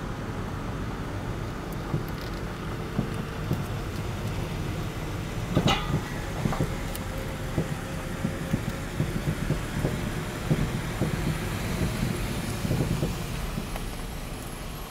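Road noise inside a moving car, with repeated short knocks and clunks from newly fitted aftermarket front coilovers, and one sharper clack about six seconds in. The knocking is abnormal noise from the coilovers, a fault the owner hears on both rough and smooth road.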